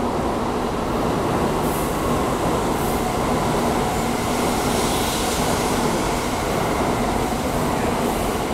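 N700-series Shinkansen train pulling into the station, its cars sliding past the platform with a steady rush of wheel and air noise and a faint steady hum.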